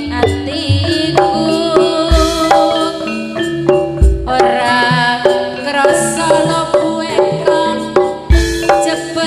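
Live campursari band playing: many pitched instrument notes over a hand-drum beat, with heavy low bass-drum beats about two, four and eight seconds in.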